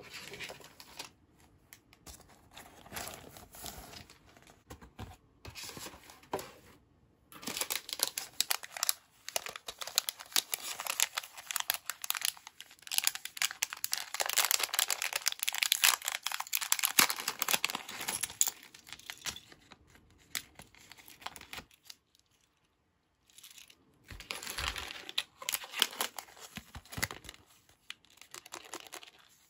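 Thin clear plastic bags crinkling and crackling as hands handle them. The sound is light for the first several seconds, then dense for a long stretch, stops briefly about two-thirds of the way in, and comes back near the end.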